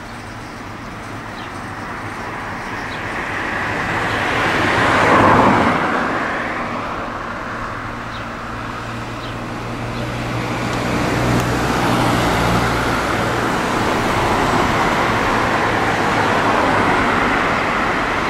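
Road traffic on a street. A car passes about five seconds in, its sound swelling and fading. From about ten seconds on, more vehicles go by in a steady run of traffic noise with a low engine hum.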